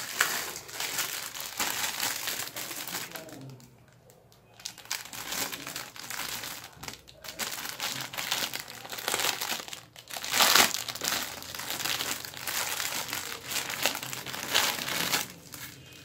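Thin clear plastic bag crinkling as hands handle it and pull a plastic toy piece out, in irregular rustling spurts with a short lull about four seconds in and the loudest crinkling about ten seconds in.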